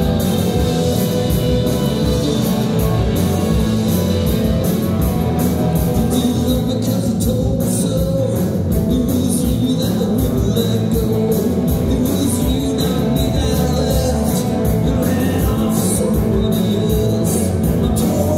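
Live rockabilly band playing through stage amplifiers: electric guitars over drums keeping a steady beat.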